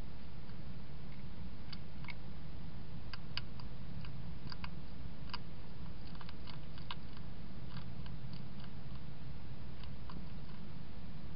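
Wild European hedgehog chewing and crunching food at a bowl: irregular sharp clicks, often several in quick succession, over a steady low hum.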